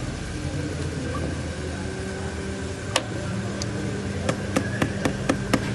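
A car engine running steadily. There is a sharp click about three seconds in, then a quick run of six sharp clicks near the end, about four a second.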